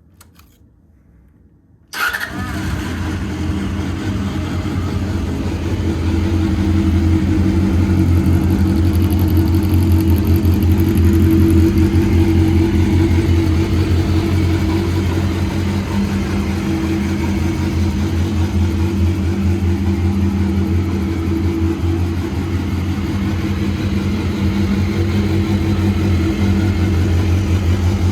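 Honda CBR250RR MC22's 250 cc inline-four starting up about two seconds in, through an aftermarket FADDY DADDY silencer, then idling steadily and getting a little louder over the next few seconds.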